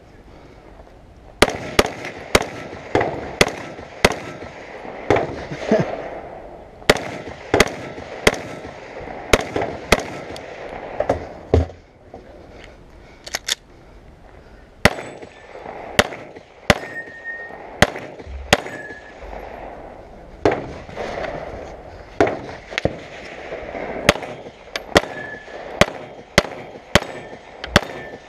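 Dozens of gunshots fired in a fast string, mostly a shot every half second to a second, with a pause of about two seconds near the middle; the later shots are from a handgun.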